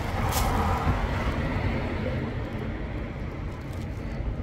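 City street traffic noise: a steady low rumble, a little louder in the first second and a half.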